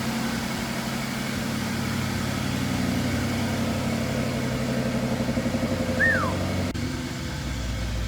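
BMW N63 4.4-litre twin-turbo V8 idling steadily with an even pulse, just started on fresh oil. A short falling squeak sounds about six seconds in.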